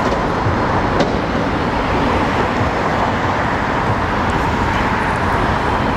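Steady street traffic noise, with passing cars making an even rush, and a single faint click about a second in.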